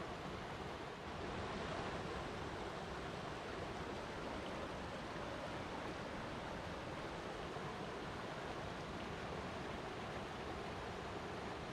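Flowing water rushing in a steady, even wash, with a brief dip about a second in.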